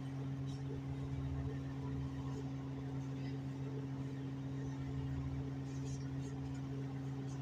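Steady drone of a Chinese-built diesel multiple-unit railcar running at speed, heard from aboard: a constant low engine hum over a rumble from the running gear.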